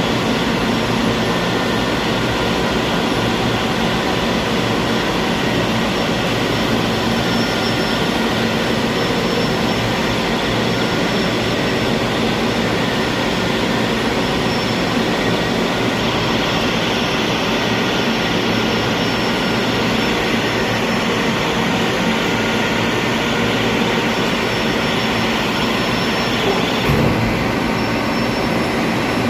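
Steady, loud machinery noise in a ship's engine room: a constant drone threaded with several steady tones. The higher hiss changes about halfway through, and there is one short thump near the end.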